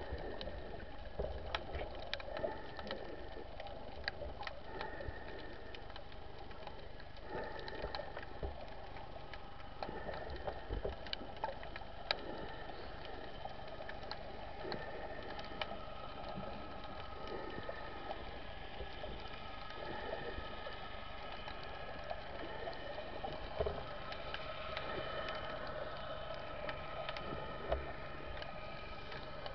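Underwater ambience picked up through a camera housing: a steady hum of several tones, with scattered sharp clicks and knocks.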